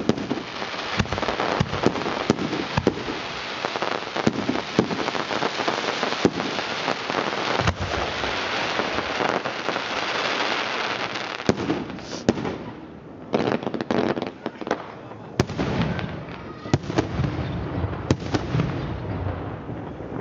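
Fireworks going off: a dense run of bangs and crackling with many sharp cracks, easing briefly about twelve seconds in before more bangs follow.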